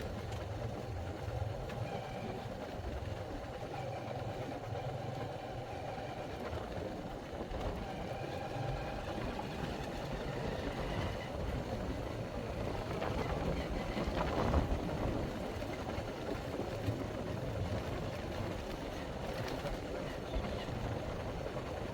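Motor vehicle engine running at a steady speed while riding, with road and wind noise; it swells briefly about two-thirds of the way through.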